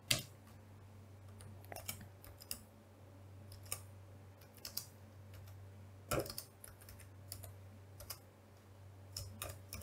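Typing on a computer keyboard: an irregular run of faint key clicks over a steady low hum.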